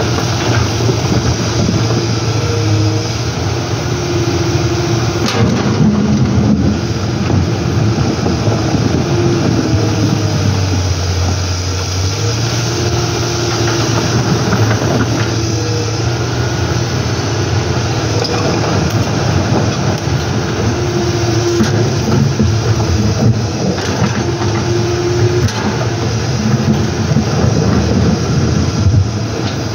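Komatsu PC200 hydraulic excavator's diesel engine running under load as it digs and shifts river stones, its note rising and falling with the work of the hydraulics, with a few knocks of stone against the bucket. Rushing shallow river water runs underneath.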